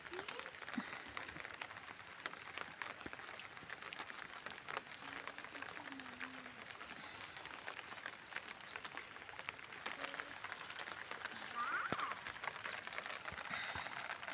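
Steady rain falling, a constant hiss dotted with many small drop ticks. Birds chirp over it in the second half.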